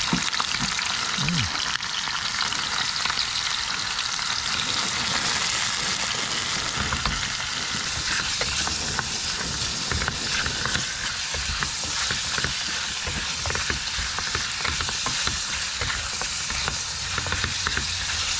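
Eel pieces sizzling in oil in an aluminium mess tin over a camping gas stove, with a steady hiss. A silicone spatula stirs them, making many small scrapes and taps against the tin, more of them in the second half.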